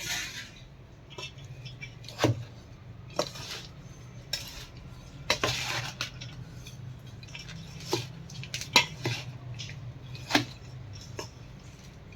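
A spoon stirring a dry, crumbly mix of roasted flour, crushed edible gum and chopped dry fruit in a bowl, with irregular sharp clinks and scrapes against the vessel, over a low steady hum.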